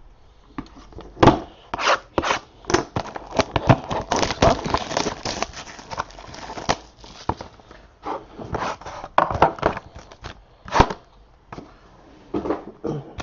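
Packaging being opened and cards handled: an irregular run of crinkling, tearing and sharp clicking noises, close by.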